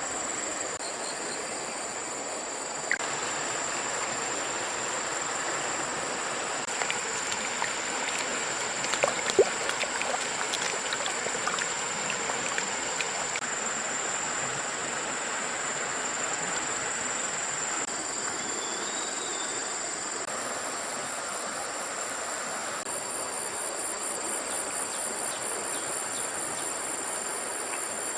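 Flowing muddy water rushing steadily under a constant high-pitched ringing tone, with a quick run of light clicks and knocks about eight to twelve seconds in.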